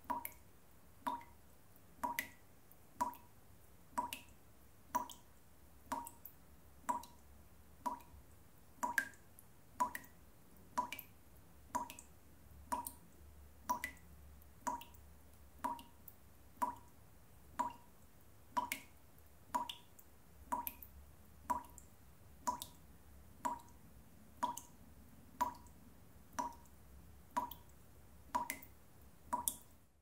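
Water dripping from a tap into a basin in a steady rhythm of about one drop a second, each drop a short plink with a brief ringing note.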